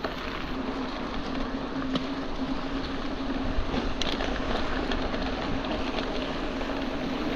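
Mountain bike rolling at a steady speed: a steady droning hum over tyre and wind noise, with a few light knocks from the bike.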